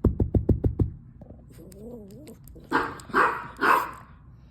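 A dog barks three times in quick succession, about three seconds in. Before that come a rapid run of about seven low thumps in the first second and a short wavering whine.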